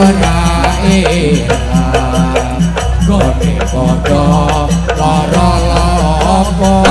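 Loud jaranan accompaniment music from a Javanese ensemble: melodic instruments holding and bending notes over a busy drum and percussion beat and a steady low drone, heard through a sound system.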